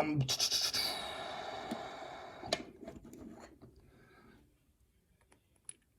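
Scraping and rustling from a lock and small tools being handled on a workbench, ending in a sharp click about two and a half seconds in; then a few faint ticks and near silence.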